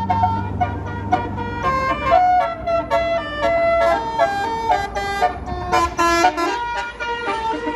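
Bus 'telolet' basuri multi-tone horn playing a fast melody of short, stepping notes.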